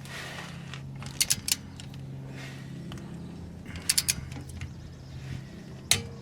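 Sharp metallic clicks from a 1/2-inch click-type torque wrench tightening the differential cover bolts to a setting of 20, in short groups about a second in, around four seconds and once near the end, over a steady low hum.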